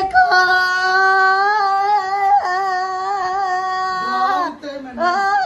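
A man's loud, drawn-out high-pitched yell held on one note for about four seconds. It breaks into a lower falling cry, then rises to a second high yell near the end: a prank shout meant to startle the household.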